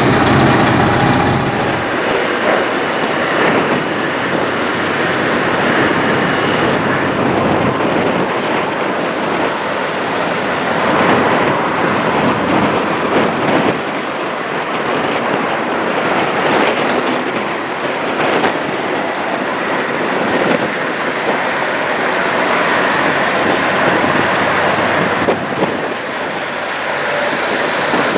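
Steady noise of diesel semi trucks running, with a low engine hum in the first two seconds.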